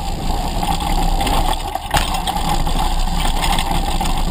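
Mountain bike rolling down a dirt singletrack, picked up by a GoPro mounted on the bike's downtube: a steady rumble and rattle of knobby tyres and frame over the dirt, with one sharp knock about two seconds in.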